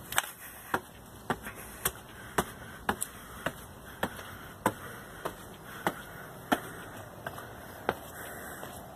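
Footsteps on stone steps and paving, sharp and regular at a little under two steps a second.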